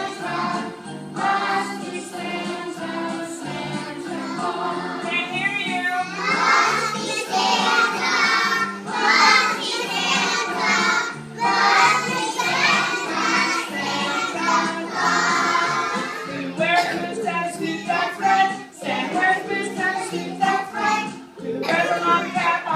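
A group of young children singing a song together, with steady instrumental accompaniment underneath.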